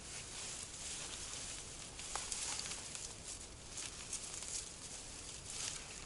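Faint footsteps and rustling through dry grass and fallen leaves, with a few small crunches.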